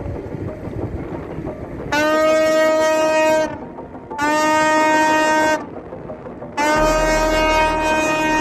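Tugboat horns sounding three long, steady blasts of about a second and a half each over a noisy background, with a low rumble joining during the last one. The horns are sounding in celebration of the refloated container ship Ever Given.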